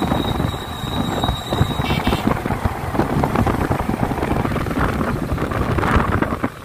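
Wind buffeting the microphone of a pillion rider on a moving motorcycle, with the motorcycle's road and engine noise underneath.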